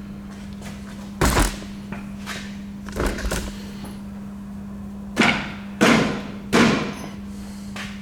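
A series of loud, sudden metallic clanks and knocks, about five, from parts and tools being handled while a car is put back together after a clutch job, over a steady low hum.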